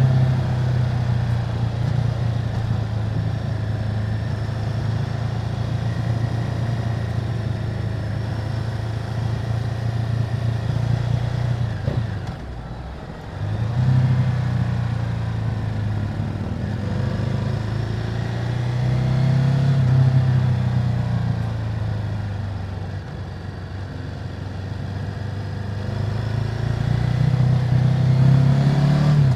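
2018 Ducati Multistrada 950's L-twin engine through its stock exhaust, running steadily under way. The engine note drops away briefly about twelve seconds in and picks back up a second or two later, then swells twice more, the second time near the end.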